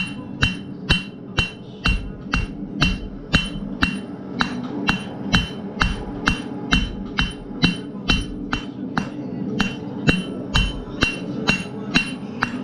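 Hand hammer striking a red-hot steel bar on a steel anvil in a steady rhythm of about two blows a second, each blow with a short bright ring of the steel.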